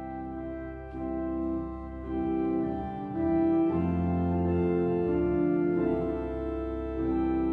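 Organ playing slow, sustained chords, moving to a new chord every second or two.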